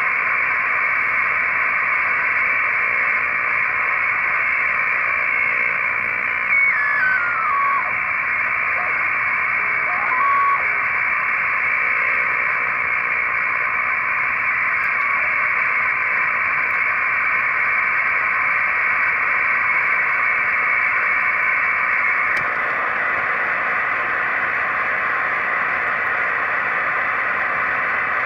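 LimeSDR receiver on the 40-meter amateur band, playing steady static hiss through a narrow receive filter. About seven seconds in, a whistle steps down in pitch, and a short rising one follows around ten seconds, as the receiver is tuned across signals.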